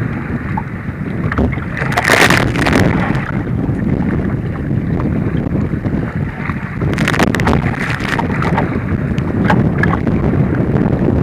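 Wind buffeting the microphone over rushing, splashing water from a kayak in rough sea. Two bigger splashes break through, about two seconds in and about seven seconds in.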